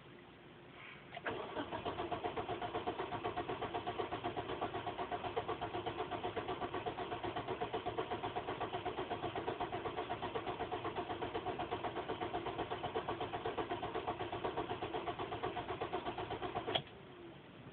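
Car starter motor cranking the engine without it catching: a fast, even churning rhythm for about fifteen seconds that starts a second in and cuts off suddenly near the end. This is a long crank of a car that won't start.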